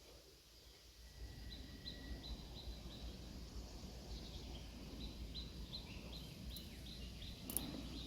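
A bird calling outdoors: a series of short, high, falling chirps repeated about three times a second, over low background noise, with one sharp click near the end.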